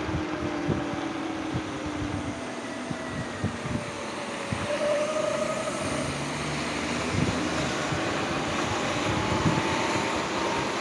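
Sur-Ron X electric dirt bike riding on wet pavement: a faint motor and drivetrain whine that shifts in pitch with speed over a steady hiss of tyres and spray, with wind rumbling on the microphone.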